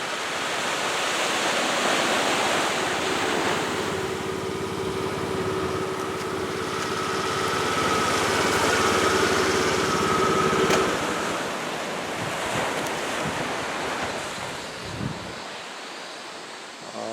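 Steady rushing noise of the sea and wind at the shore. A steady hum joins about three seconds in and cuts off suddenly around eleven seconds.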